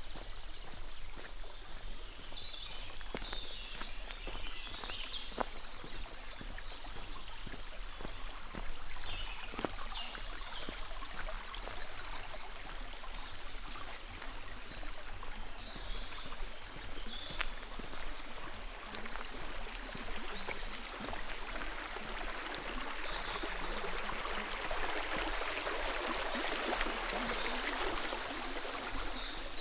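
Running water of a small forest brook and trail-side channel, growing louder near the end, with high chirping birdsong in the first half and occasional soft footstep clicks.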